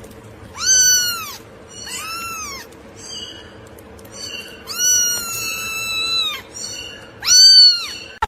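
A cat meowing repeatedly: about four loud, arching meows, with a long drawn-out one around the middle and the loudest near the end, plus a couple of fainter ones between.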